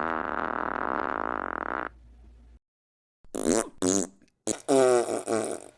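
A long, drawn-out fart that ends about two seconds in. After a short silence comes a run of shorter farts: two quick ones, a brief blip, and a longer one with a wavering pitch near the end.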